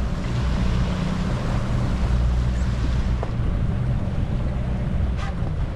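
Steady low rumble of a fishing boat's engine, with wind buffeting the microphone. A short hiss comes about five seconds in.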